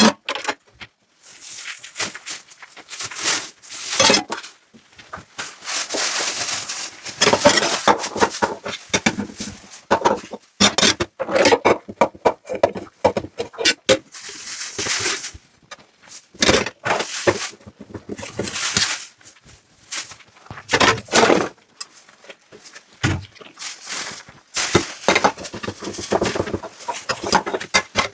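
Dishes being washed by hand in a sink: water splashing and running in irregular bursts, with dishes and utensils clinking and knocking against each other.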